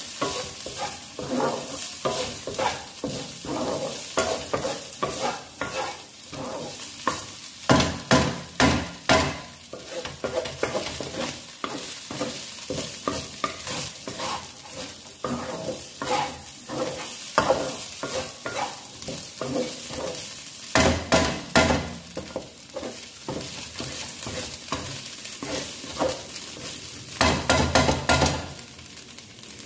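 Wooden spatula stir-frying diced carrot and minced meat in a hot honeycomb-textured frying pan: scraping and pushing strokes over a steady sizzle. Several bursts of quick, louder strokes come about a third of the way in, around two-thirds and near the end.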